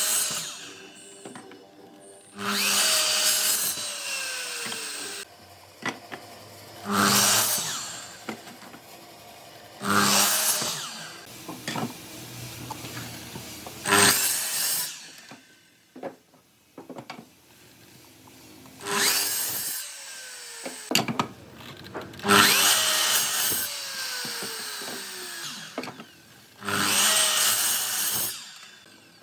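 A power woodworking tool cutting wood in a series of short passes. Each pass is a burst of noise lasting one to three seconds, and after several of them the motor's whine falls in pitch as it slows down.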